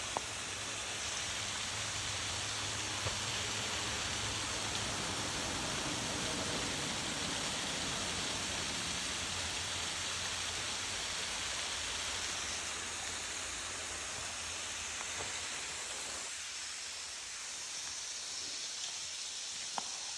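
Waterfall rushing: a steady hiss of falling water whose low rumble drops away about sixteen seconds in.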